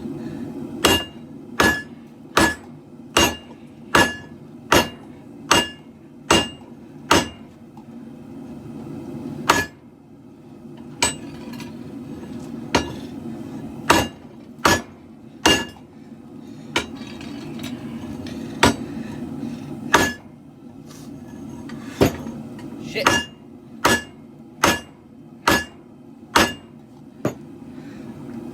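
Hand hammer striking hot steel on an anvil in runs of steady blows, a little under one a second with short pauses between runs, each blow giving a brief metallic ring. Under the blows runs the steady roar of a two-burner propane forge.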